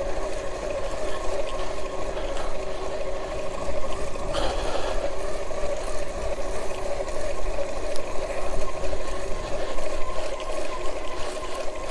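Electric bike's Alba 500-watt motor kit whining steadily at cruising speed on asphalt, with tyre hiss and wind rumble on the microphone.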